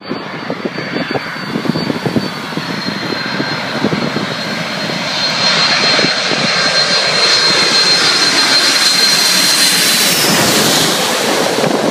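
A Boeing 747's four jet engines on final approach, a steady high whine that grows louder as the airliner comes in low overhead. The whine drops in pitch about ten seconds in as the jet passes. Wind rumbles on the microphone through the first half.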